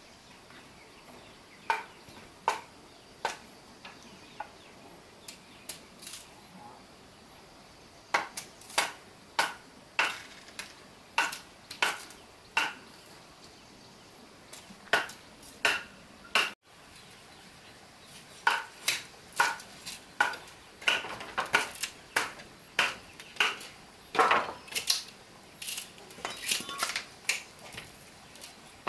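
Repeated sharp metallic clinks and knocks at an uneven pace of one or two a second, sparse at first and busier in the second half, like metal striking metal or a hard utensil on a pot.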